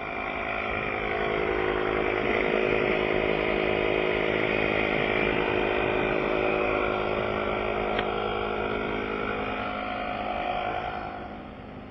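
A motor running steadily at one even pitch, swelling in near the start and dying away about eleven seconds later.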